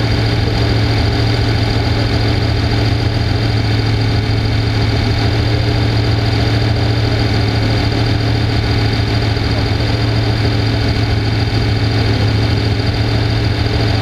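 Off-road race vehicle's engine idling steadily, heard from on board while the vehicle stands still.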